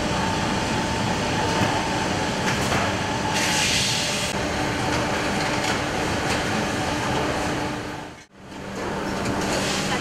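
Shoe factory workshop noise: a steady machinery hum with faint steady tones. A hiss stands out for about a second near the middle, and the sound cuts out briefly about eight seconds in.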